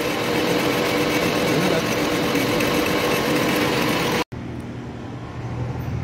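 A machine running steadily with a constant hum under dense mechanical noise, cut off abruptly about four seconds in. A quieter, lower-pitched machine hum follows.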